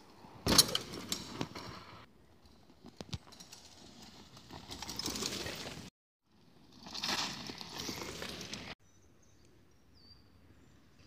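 A bike landing off a small wooden drop onto a dirt trail with a sharp thud about half a second in, followed by tyre noise on the dirt in stretches that cut off abruptly several times.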